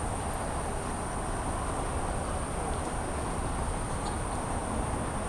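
Steady outdoor night ambience: a low, even city rumble with a continuous high-pitched insect chorus over it.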